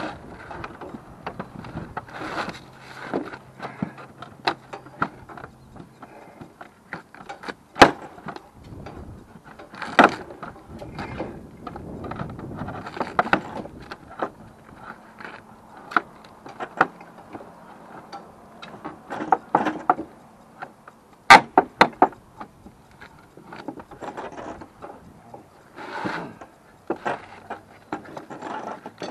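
Old metal roof flashing being pried and pulled off a shingled roof edge with a hand tool: irregular metallic knocks and scrapes. There are sharp loud knocks about eight and ten seconds in and a quick cluster of them around twenty-one seconds.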